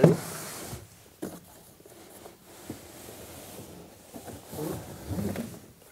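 Pilates reformer carriage being slid out of its cardboard shipping box: cardboard scraping and rustling, with a few knocks. The loudest knock comes right at the start.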